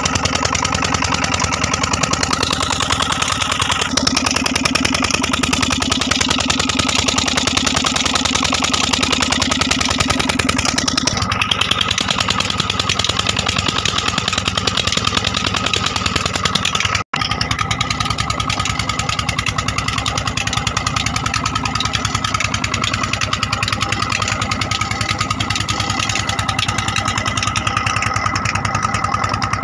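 Old Petter stationary diesel engine running steadily under load, driving a tubewell pump through a flat belt. The sound cuts out for an instant about two-thirds of the way through.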